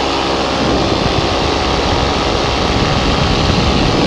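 Paramotor engine and propeller running steadily in flight: an even drone with a loud rushing of air over it.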